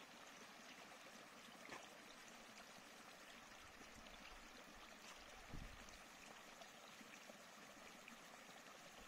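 Faint, steady rushing of a stream, with a brief soft low bump a little past halfway.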